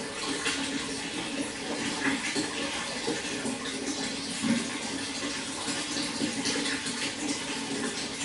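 Running water flowing and splashing steadily.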